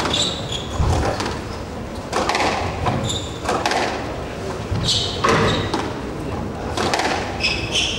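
Squash match play: the ball knocking off rackets and walls, with players' court shoes squeaking sharply on the wooden floor several times, over a murmur of crowd voices.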